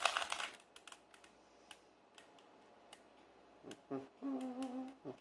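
Plastic Rubik's cube layers being twisted: a quick rattle of clicks at the start, then scattered single clicks. About four seconds in comes a short steady hum, lasting about a second.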